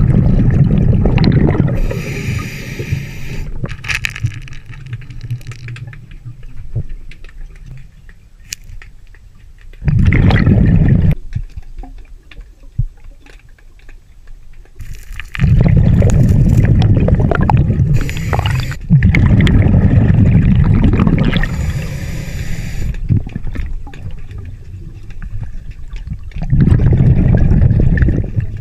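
Scuba diver's regulator breathing underwater: exhaled air comes out as loud bubbling bursts every few seconds, with a quieter hiss of the inhaled breath between them.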